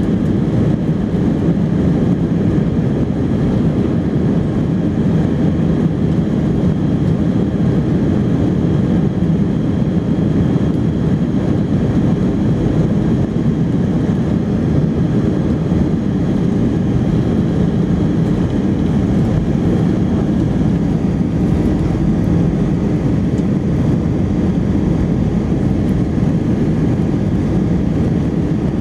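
Steady cabin noise of a jet airliner rolling on the ground before take-off, heard from a window seat over the wing: an even engine drone and rumble that stays level, with no spool-up.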